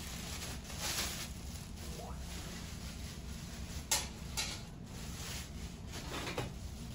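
Clear plastic wrapping rustling and crinkling as wrapped metal mesh air-fryer trays are handled and laid down, with a sharp clack about four seconds in as a tray is set on the stack and a softer knock just after. A steady low hum runs underneath.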